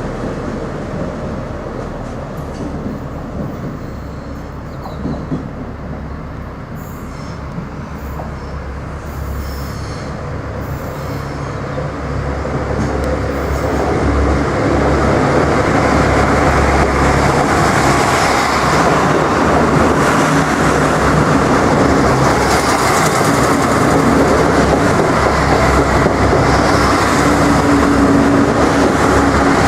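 Irish Rail 29000 class diesel multiple unit running through a station, with engine hum and wheels on the rails. It grows louder about halfway through and then stays loud and steady.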